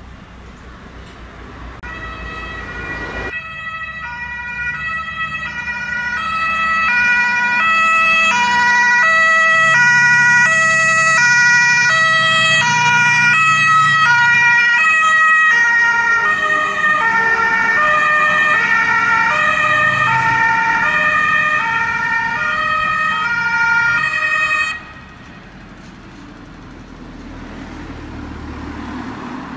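German two-tone emergency siren (Martinshorn) on a MAN fire-service command truck. It alternates between two tones over the truck's diesel engine, grows louder as the truck approaches, drops slightly in pitch as it passes, and cuts off abruptly after about 25 seconds. Only the engine is heard after that, rising again near the end.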